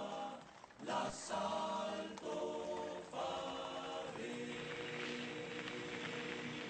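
Background choral music: voices singing long held notes in a slow, chant-like line, changing chord about once a second, then holding one chord from about four seconds in.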